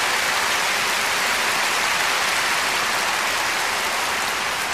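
A large crowd applauding, a steady wash of clapping.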